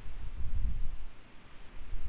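Wind buffeting the microphone: an uneven low rumble that swells and dips, over a faint hiss.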